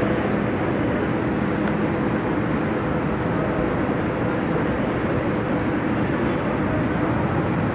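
Steady rain falling on wet paving, with the low hum of idling bus engines underneath.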